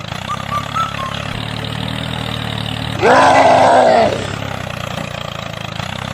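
A mini tractor's motor running with a steady drone. About three seconds in, a louder rough, roar-like sound lasts about a second.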